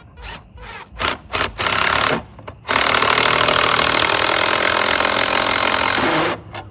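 Power drill run in three short bursts, then held on steadily for about three and a half seconds.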